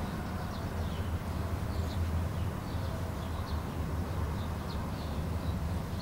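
Outdoor ambience: a steady low rumble with many faint, short high-pitched chirps scattered throughout.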